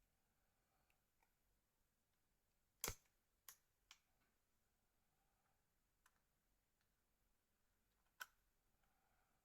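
A few sharp clicks of small Nokia 3650 phone parts being handled and fitted together during assembly: three within a second about three seconds in, another near the end, otherwise near silence.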